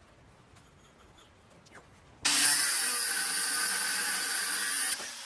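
After about two seconds of quiet, an angle grinder with a thin cut-off wheel cuts steadily through a steel rod with a loud hiss. It stops suddenly near the end.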